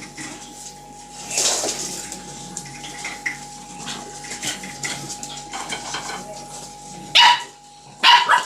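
A dog making a series of short, sharp sounds, with a louder one about a second and a half in and two loud ones near the end.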